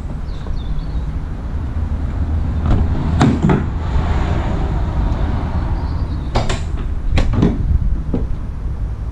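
Metal van doors being opened: two bursts of clunks from handles and latches, about three seconds in and about seven seconds in, then a single knock near the end, over a steady low rumble.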